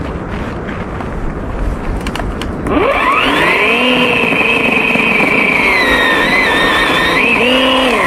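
Cordless battery chainsaw spinning up about three seconds in with a rising whine, then running as it cuts into bush branches, its pitch wavering and dipping under the load near the end before it winds down.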